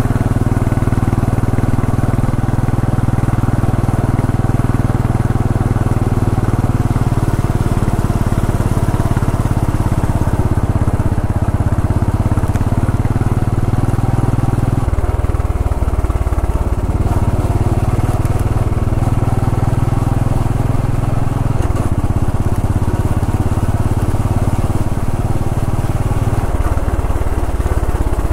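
Royal Enfield Bullet 500 EFI's air-cooled single-cylinder engine and exhaust running steadily under way at moderate speed. Its low note shifts a few times, about halfway through and again twice near the end, as speed or gear changes.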